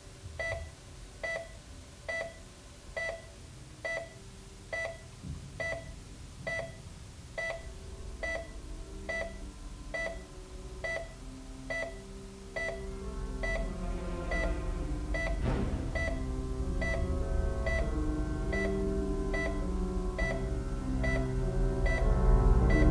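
Patient monitor beeping steadily, about one beep a second. Held low music notes swell in beneath it from about a third of the way through and grow louder near the end.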